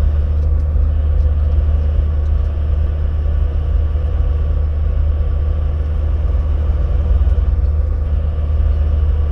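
Semi-truck's diesel engine and drivetrain running with a steady low rumble, heard inside the cab while the truck rolls slowly at low speed.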